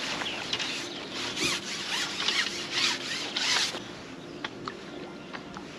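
Carbon fishing pole being pushed out over the water, its sections rubbing and rasping in quick strokes for about four seconds. After that come only a few light clicks.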